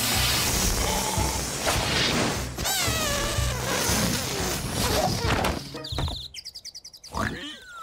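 Air rushing out of an open air-mattress valve: a loud hiss with wavering, whistling pitch glides, turning into a fast fluttering sputter near the end. Background music plays underneath.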